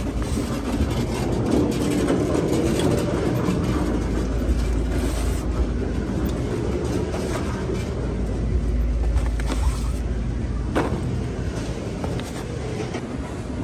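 Low steady rumble, heavier in the middle, with a few light knocks and rustles as pulp egg cartons are pulled from a refrigerated case and handled; one sharper knock near the end.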